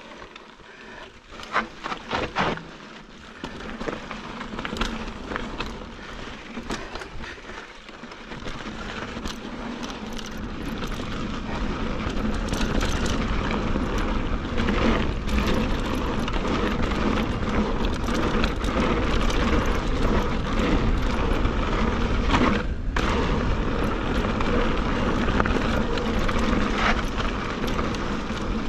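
Mountain bike riding over rock and dirt trail: a few sharp knocks and rattles from the bike about two seconds in, then a steady rush of tyre and wind noise that grows louder as the bike picks up speed on the descent.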